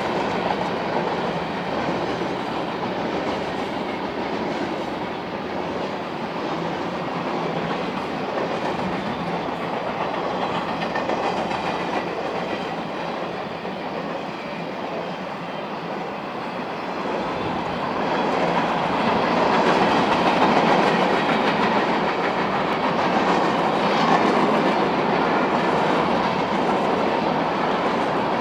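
Freight cars of a Union Pacific mixed freight train rolling past, steel wheels running over the rails in a continuous rumble that grows louder about two-thirds of the way through.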